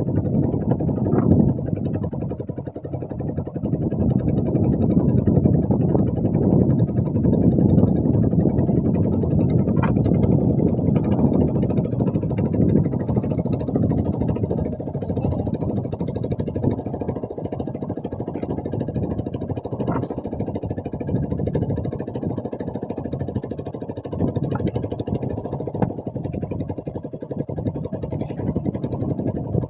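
Small boat's engine running steadily, a continuous low rumble.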